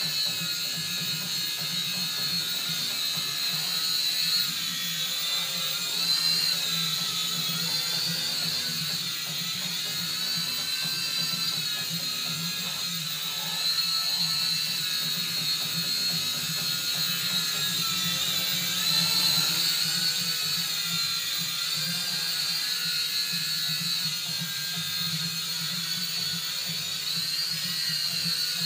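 Syma X5C-1 mini quadcopter hovering, its four small brushed electric motors and propellers making a steady high-pitched buzzing whine whose pitch wavers slightly up and down.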